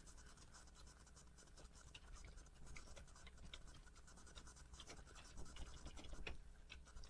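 Faint computer keyboard typing: irregular light keystroke clicks over a low background hum.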